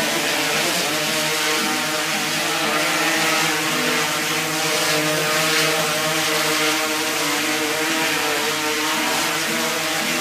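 DJI Inspire 1 quadcopter's four motors and propellers running steadily as it hovers and flies, a loud buzzing whine with several held tones over a dense rushing hiss.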